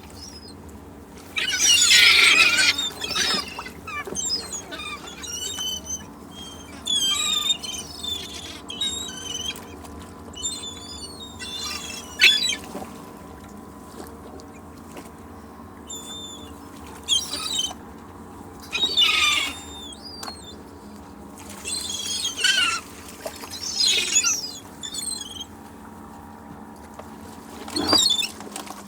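Seagulls calling again and again in short squealing cries over a steady low background of beach ambience, with the loudest run of calls about two seconds in.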